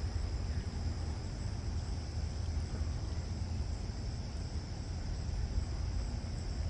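Wind buffeting the microphone as a steady low rumble, with a constant high-pitched insect chorus, like crickets, running over it.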